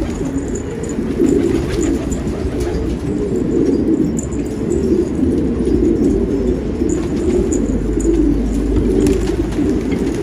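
Domestic pigeons cooing, several birds overlapping in a continuous low warbling chorus.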